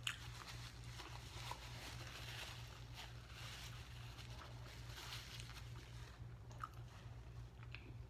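Faint close-up chewing and mouth sounds with soft napkin rustling as a mouth is wiped, scattered small clicks, over a steady low hum.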